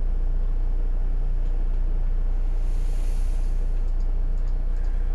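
A steady low electrical hum, with a faint hiss that swells and fades about three seconds in.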